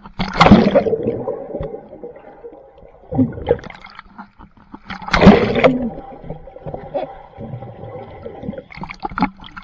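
Pool water splashing and gurgling, with two loud splashes, one about half a second in and one about five seconds in, and a smaller one near three seconds.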